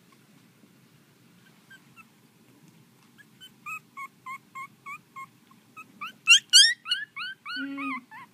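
Young Pomeranian puppy squeaking and whimpering: a run of short, high, rising squeaks, about three a second, from about three seconds in, then two loud yelps and longer whines near the end.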